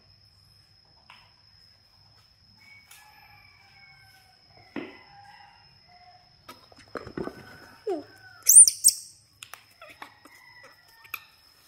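Baby macaques biting and chewing slices of gourd, with faint crunching and clicking. A pair of sharp, very high-pitched squeaks stands out a little past the middle.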